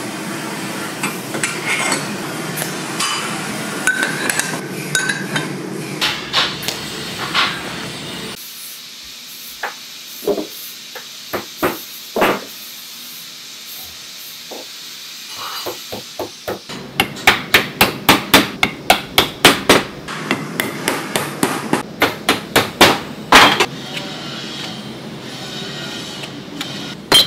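Hammer blows on steel scraper parts. First come single strikes a second or more apart, then two fast runs of about five strikes a second in the second half.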